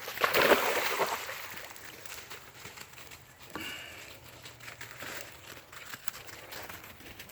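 A brief rustling swish in the first second, then a short high-pitched whine about three and a half seconds in, over faint outdoor background.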